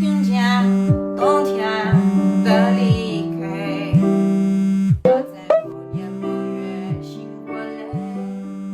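Background music: a melody over a long low bass note that repeats about once a second, with a short sharp sound effect about five seconds in.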